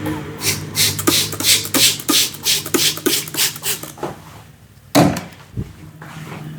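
Hand-percussion massage strokes on the head: a fast run of slaps or chops at about four a second for some three seconds, then a single louder slap about five seconds in.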